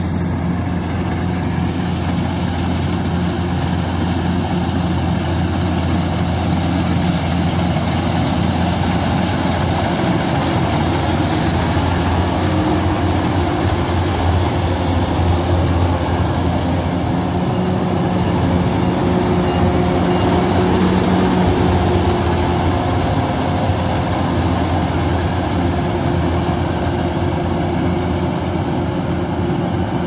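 Kubota DC-105X combine harvester working a rice field: its diesel engine and threshing machinery give a loud, steady drone that swells a little midway as the machine passes close.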